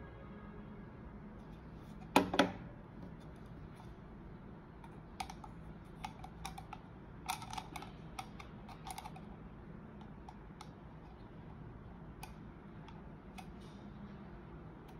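Small clicks and taps of a SATA data recovery adapter board being handled and fitted onto a Western Digital USB hard drive's pins: a sharp double click about two seconds in, then a scatter of lighter clicks a few seconds later.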